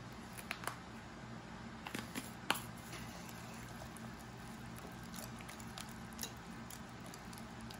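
Wire whisk stirring a thick, creamy vegetable filling in a glass bowl: faint squishing with a few scattered clicks.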